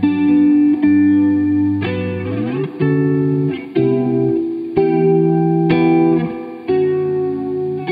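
Electric guitar (a Danocaster Single Cut) played through a Dr. Scientist Cosmichorus modulation pedal into a Divided by 13 EDT 13/29 tube amp. Ringing clean chords change about once a second, with a brief downward pitch bend about two seconds in.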